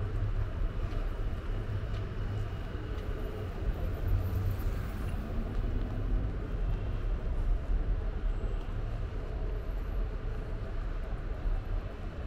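City street ambience: a steady low rumble of traffic and general urban noise, with faint higher tones coming and going.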